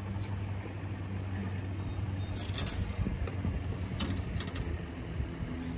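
Small fishing boat's motor running with a steady low hum, under wind and water noise. A few short sharp clicks come about two and a half seconds in and again around four seconds in.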